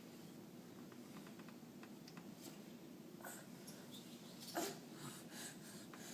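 A baby's single short hiccup about four and a half seconds in, over faint scattered taps and rustles of her crawling.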